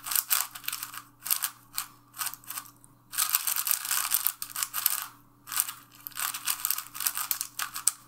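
A QiYi MS 4x4 speed cube being turned fast by hand: rapid flurries of light plastic clicks and clacks from the layers, with short pauses between. The cube is heavily lubed out of the box and turns very light and fast, and its outer layers are catching as it turns.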